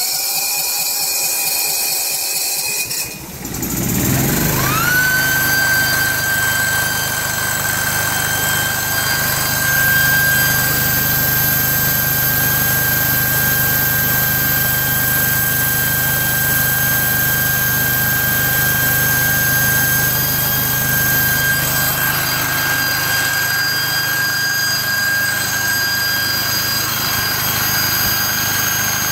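Dayton 5 kW propane standby generator (a Generac build with a belt-driven generator head) is cranked by its electric starter for about three seconds, catches about four seconds in, and comes up to speed with a tone that rises and then holds. It then runs steadily, with a constant whine over the engine's hum.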